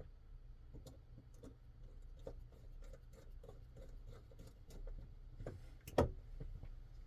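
Small scratchy clicks of a driver turning a screw into a Vero Impulse Mini folding knife, with one sharper knock about six seconds in.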